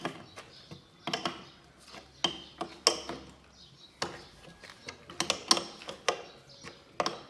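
Wrench working a bolt into a plough's mouldboard mounting: short metallic clicks and clanks in irregular bursts about once a second, as the bolt is worked through the connecting plate into place.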